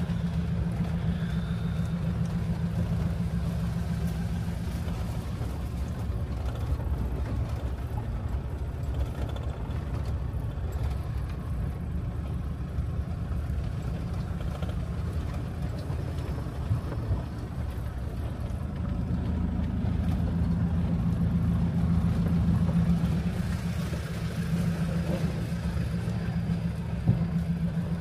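A vehicle engine running under way, heard from inside the cab as it drives along a dirt track. The engine note grows louder for a few seconds about twenty seconds in, then settles back.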